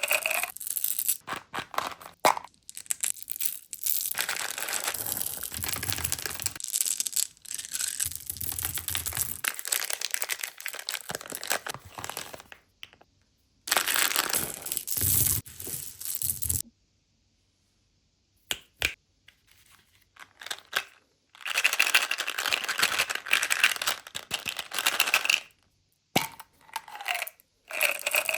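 Plastic candy packaging crinkling and tearing open, with small hard-shelled candies clattering and rattling, in bursts with short pauses.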